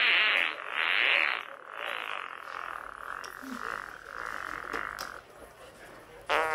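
A run of raspy, hissing noises, each about half a second long. The first two are loud and the rest fainter, dying away about five seconds in.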